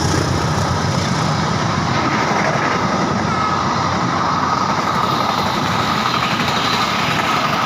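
Train rolling past at close range: a steady, loud rumble and rattle of wheels on the rails, with a faint thin ringing tone above it.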